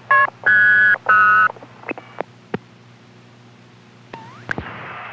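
A run of short electronic tone beeps sent down a telephone line into an answering machine, several in the first second and a half, followed by clicks and steady line hiss, with a short rising chirp and a sharp click about four seconds in.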